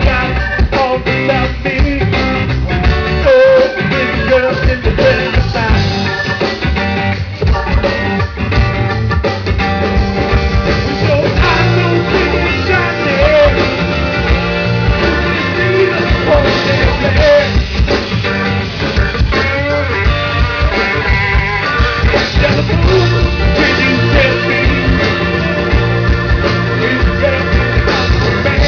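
Live band playing a rock and blues song with guitar and a drum kit keeping a steady beat, with singing over it.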